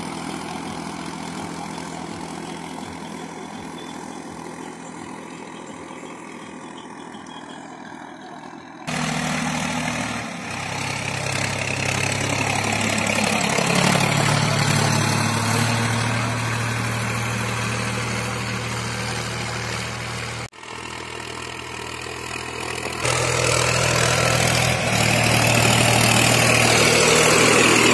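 Swaraj 960 FE tractor's diesel engine running steadily under load while it pulls a harrow. The engine is fainter for the first nine seconds or so, then suddenly louder and closer, breaks off for an instant around twenty seconds in, and grows louder again near the end.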